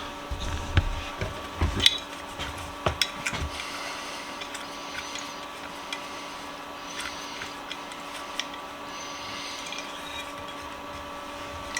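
Hand work on small metal tool parts: a quick run of knocks and clicks, then lighter ticks and faint scraping, over a steady electrical hum.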